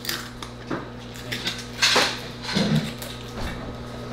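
A plastic supplement bottle being unscrewed and capsules shaken out into a hand: a series of clicks and rattles, loudest about two seconds in.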